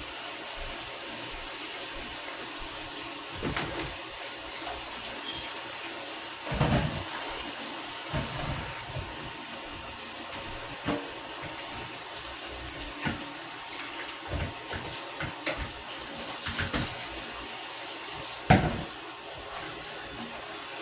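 Kitchen tap running steadily into a sink as squash is washed under it, with scattered knocks and clunks from handling in the sink. One sharp knock comes near the end.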